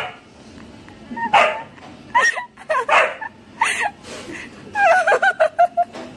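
Husky giving a run of short, high calls that bend up and down in pitch, with a longer wavering whine about five seconds in.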